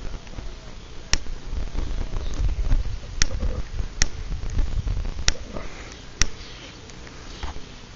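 Handling noise from a handheld camera carried while walking: a low rumble of rubbing and wind on the microphone, with a few irregular sharp clicks and knocks.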